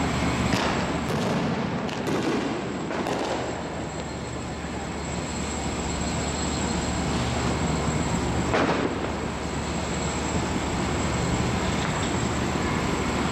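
A steady low rumble with a handful of scattered firework bangs, the clearest about eight and a half seconds in.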